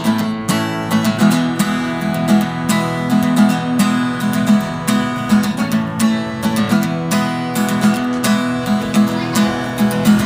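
Music led by a strummed acoustic guitar, with a steady rhythm.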